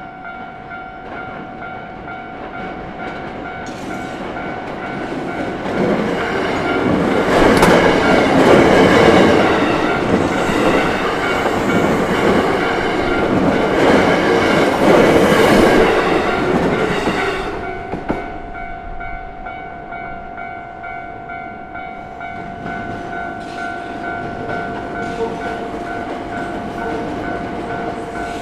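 A Hankyu train passing over a level crossing, loud from about 6 seconds in and dying away after about 17 seconds, while the crossing's alarm rings steadily throughout.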